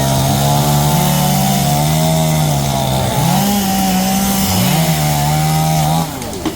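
Two-stroke chainsaw running at high throttle, its pitch stepping up and down several times as it works, then falling away near the end.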